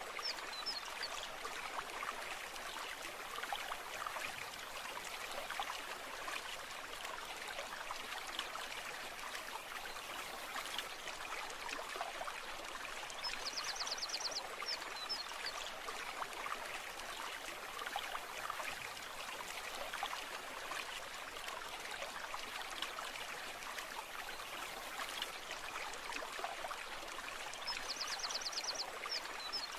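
A babbling stream: water running and trickling steadily over stones. A short, high, rapid trill sounds briefly twice, near the middle and again near the end.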